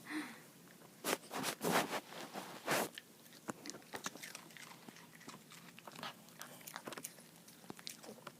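Maltipoo chewing and crunching, with a few loud crunches in the first three seconds, then fainter, scattered clicks.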